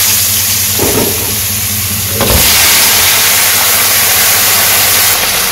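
Cut vegetables, eggplant and potato among them, sizzling as they are dropped into hot oil in a wok, a loud steady hiss that grows louder about two seconds in as more vegetables go in.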